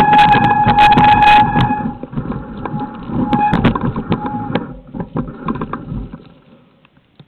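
Mountain bikes being pushed over loose rock, with their parts rattling and clicking and shoes crunching on gravel, under a low rumble of handling or wind on the microphone. A steady high tone sounds for the first two seconds and briefly again about three and a half seconds in. Everything dies away to almost nothing about six seconds in.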